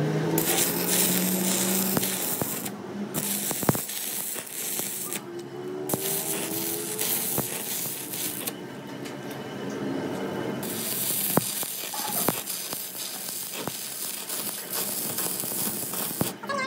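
Stick welder's arc crackling and hissing in four runs of a few seconds each, broken by short pauses, with a few sharp pops, as a steel patch is welded onto a cracked truck axle housing.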